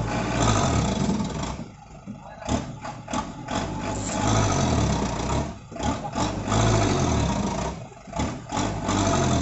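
Toyota Dyna 115 PS truck's diesel engine revving in four surges with short dips between, working under load as the fully laden truck tries to pull out of deep mud.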